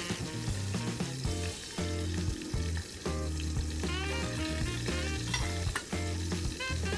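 Food frying in a pan with a continuous sizzle, under background music with a steady bass line.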